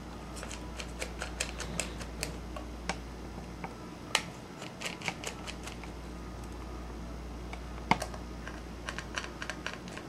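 Small screwdriver undoing the tiny screws of an iPod Video's headphone jack: irregular light clicks and ticks of the tip on the screws and the metal case, with a sharper click about 4 s in and another near 8 s, over a steady low hum.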